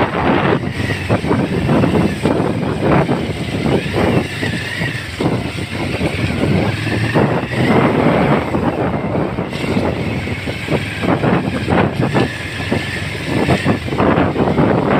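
Motorcycle engine running steadily on a rough dirt track, with many short knocks and bumps from the uneven ground throughout.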